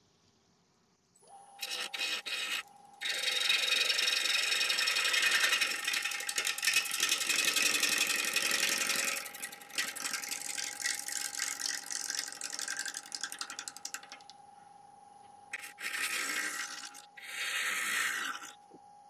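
Wood lathe starting about a second in and running with a steady whine, while a bowl gouge roughs down a damson log between centres: fast, rattling scraping cuts as the still out-of-round blank with its flat spots knocks against the tool. The cutting is heaviest in the first half, lighter after, with two short cuts near the end.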